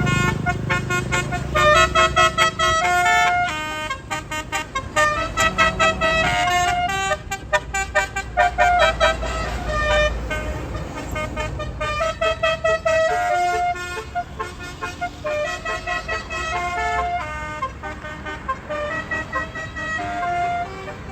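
Tour bus basuri (telolet) multi-tone horn playing a fast tune of short stepped notes, with an engine running underneath.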